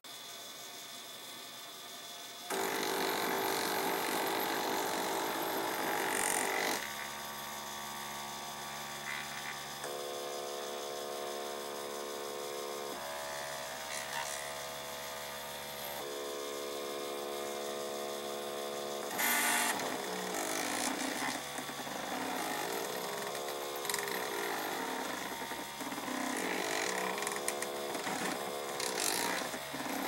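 3D printer's stepper motors whining as the print head and bed move, held on steady pitches that jump to new ones every few seconds. Quieter for the first couple of seconds, then louder. After about twenty seconds the pitch changes quickly through many short moves.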